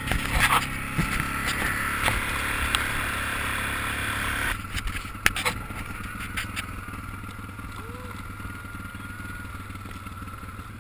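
Small off-road vehicle's engine running steadily while it rides a rough dirt track, with scattered knocks and rattles from the bumps. The engine eases off about four and a half seconds in.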